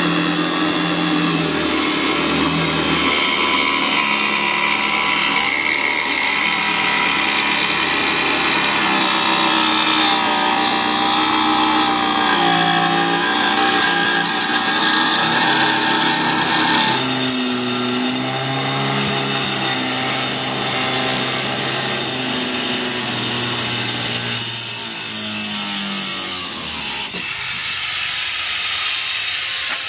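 Angle grinder with a thin cutting disc running and cutting along a painted boat hull's edge, its whine wavering in pitch as the disc is loaded. Near the end the grinder spins down.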